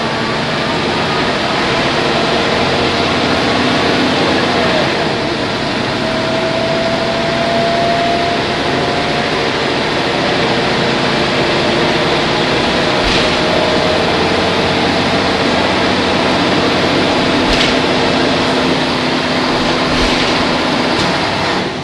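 Ikarus 280 articulated bus's Rába D10 diesel engine and drivetrain running under way, heard from inside the bus as a loud, steady drone. A faint whine rises slowly in pitch about a quarter of the way in. A few sharp knocks come in the second half.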